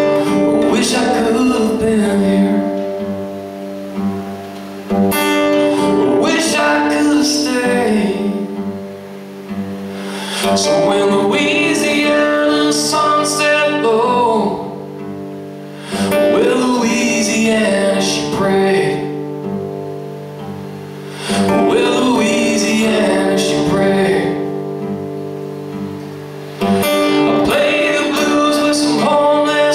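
A man singing to his own strummed acoustic guitar, solo and live. Each sung phrase begins with a loud strum, about every five seconds, and the chords ring on beneath the voice.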